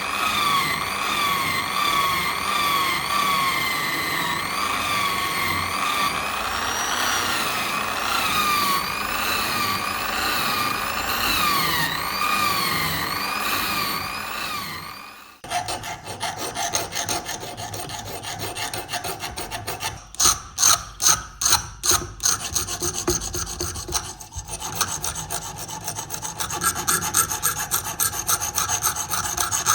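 A small power tool's motor whines, its pitch dipping and recovering about twice a second as it is pressed into the work. It stops abruptly about halfway through, and rhythmic hand filing follows: rasping strokes about two to three a second, heaviest in two spells.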